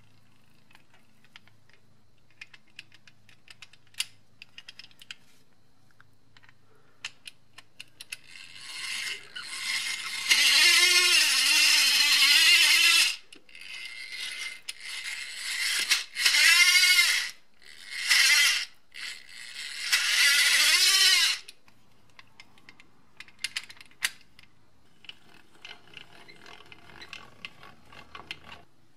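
Rusty two-speed enclosed breast drill being hand-cranked: its dry gearing grinds with a loud screech whose pitch wavers up and down, in four bursts from about a third of the way in, the longest about three seconds, because the gears lack grease. Light clicks and knocks of handling the drill before and after.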